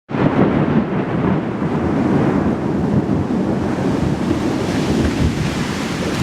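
Thunderstorm: a continuous low rumble of thunder with a steady hiss of rain.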